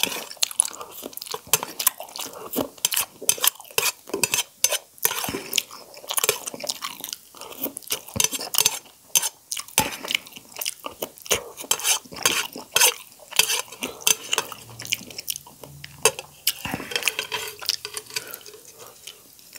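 Close-miked slurping and wet chewing of noodle soup, a dense run of sharp, irregular mouth clicks and smacks that thins out near the end.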